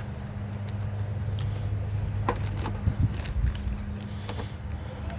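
A steady low hum runs under scattered small clicks and rattles of tools being handled, the loudest clicks a little before the three-second mark.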